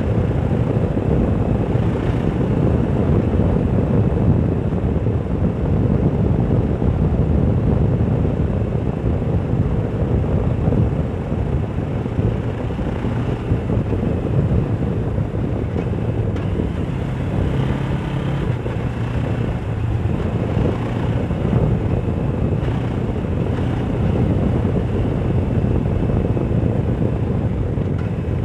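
Suzuki GS500F parallel-twin motorcycle engine running under way, with steady wind noise buffeting a helmet-mounted microphone. The engine note shifts a little in pitch through the middle.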